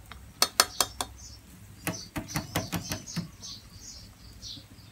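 Metal ladle clinking and tapping against the rim of an aluminium cooking pot: three sharp clinks in the first second, then a quicker run of lighter taps about two seconds in. Small birds chirp in the background.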